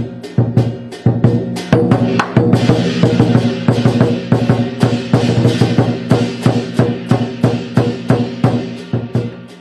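Lion dance percussion: a drum beating a steady pulse of about three to four strikes a second, with crashing cymbals joining about two and a half seconds in and dropping away near the end.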